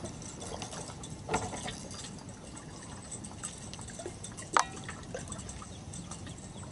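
Water lapping and trickling against a boat hull, with a few brief knocks and one sharp click about two-thirds of the way through.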